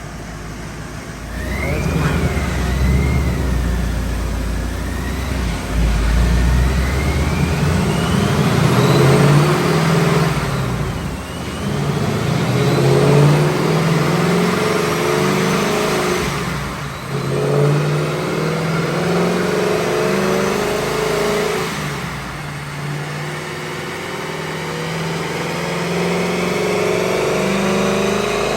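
Supercharged Ford 5.0 Coyote V8 of a 2019 Mustang Bullitt accelerating hard, with a high supercharger whine that climbs with the revs. The pitch drops three times as the car shifts up through the gears, then climbs again.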